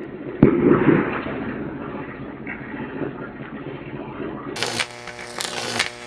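High-voltage arcing between wire electrodes. A sharp crack comes about half a second in, then a steady crackling and sizzling. Near the end it changes to a loud electrical buzz with a humming pitch.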